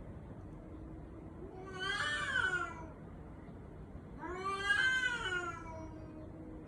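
Domestic cat meowing twice in long, drawn-out, baby-like calls, each about a second and a half, rising then falling in pitch; the second is a little louder.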